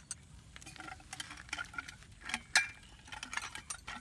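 Scattered light clicks, taps and clinks of camp cookware and utensils being handled on a wooden table, the sharpest about two and a half seconds in.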